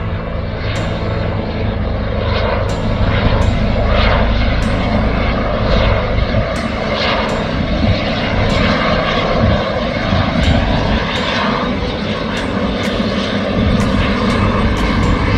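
AgustaWestland AW139 twin-turbine helicopter hovering low, its main rotor and turbines giving a loud, steady noise with a deep rumble underneath.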